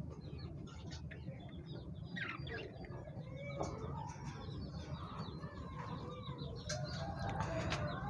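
A mix of caged aviary birds chirping and calling: many short calls overlapping, with a few lower calls near the end.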